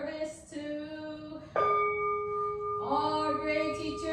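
A Buddhist bowl bell struck once about one and a half seconds in, ringing on with a steady, layered tone. It marks a bow in the service. Women's voices sing before the strike and come back in over the ringing bell.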